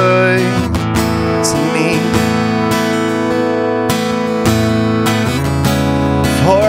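Acoustic guitars strumming sustained chords in a slow worship song, between sung lines.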